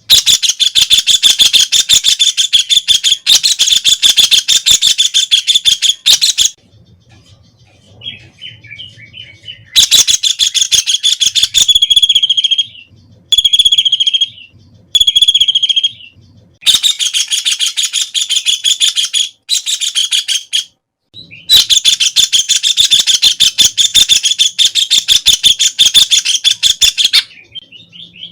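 White-throated kingfisher calling: long, loud rattling trills of rapidly repeated high notes, each lasting several seconds, with three short separate calls in the middle.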